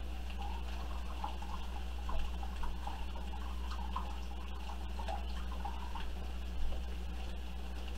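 Rice wine vinegar glugging out of a tipped bottle into a bowl of soy sauce, a run of small gurgles that stops about six seconds in. A steady low hum runs underneath.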